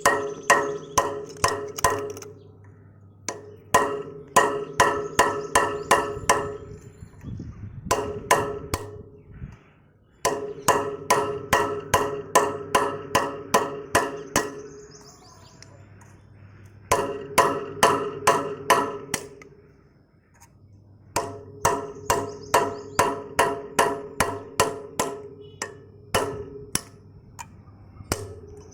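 Hammer striking metal in runs of quick, even blows, about three to four a second, each blow leaving a short metallic ring, with brief pauses between runs. It is typical of a part on a rotavator being knocked loose or driven in while its oil seal is changed.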